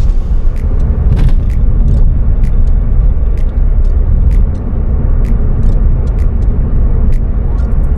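Suzuki Swift Sport (ZC32S) on the move: a steady low rumble of engine and road noise, with many scattered short clicks.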